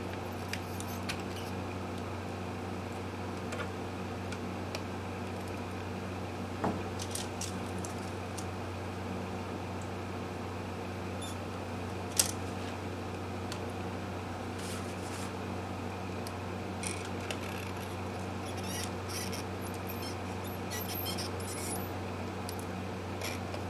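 Small clicks, scrapes and short crackles as wires are desoldered from the potentiometers in a guitar's control cavity with a soldering iron, over a steady low hum. The loudest sound is one sharp click about twelve seconds in. Clusters of short crackles come in the last third.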